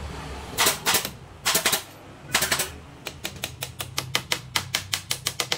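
Sharp knocks: three short clusters of quick strikes, then from about three seconds in a steady run of lighter taps, about five a second.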